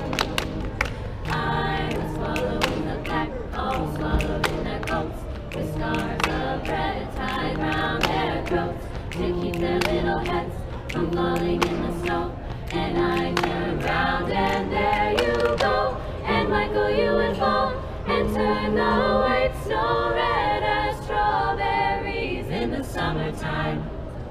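A small group of voices singing a cappella in harmony, with hand claps near the start.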